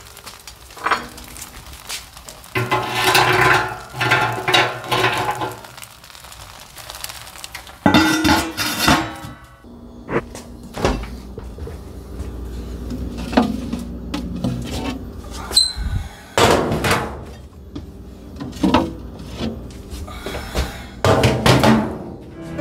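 Knocking and clattering of metal and glass being handled, some knocks ringing briefly, with a heavier thud about eight seconds in.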